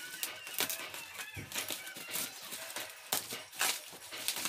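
Black plastic bag packaging crinkling and rustling as it is cut and pulled open by hand, with several sharper crackles and snips.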